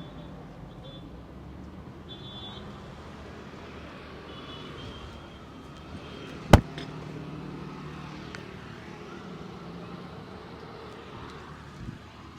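Steady street traffic noise, with one sharp, loud impact about six and a half seconds in.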